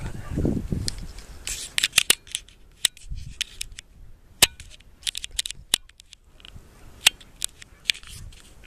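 Irregular sharp clicks and crackles with a few louder snaps, and a low rumble in the first second.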